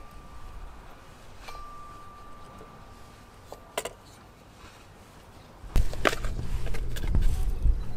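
Quiet handling of sliced potatoes as they are slid into a baking dish, with a short clink just before the middle and a faint steady high tone. About six seconds in a much louder low rumble begins, with clicks and taps of the knife working on raw shrimp.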